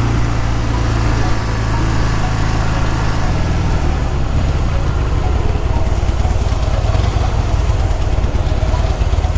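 Harley-Davidson V-twin motorcycle engine running under way. About three seconds in its note drops to a lower, pulsing beat as the bike slows.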